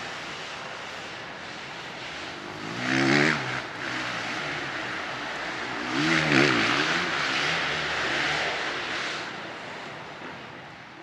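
Motocross bikes' engines revving on the track, with two louder surges of rising and falling revs about three and six seconds in, then fading away near the end.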